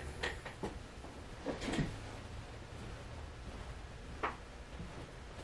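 Low steady hum with a few scattered soft knocks and clicks: a duller knock a second and a half in and a sharper click a little after four seconds.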